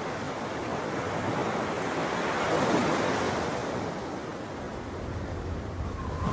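Small sea waves washing up a sandy shore, the surf swelling to a peak about two and a half seconds in and then easing off. A low wind rumble comes in near the end.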